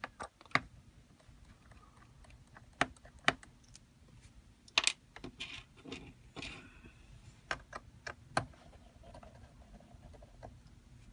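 Irregular light clicks and taps, about a dozen in all, of a small Phillips screwdriver working the screws out of a MacBook Pro's aluminium bottom case.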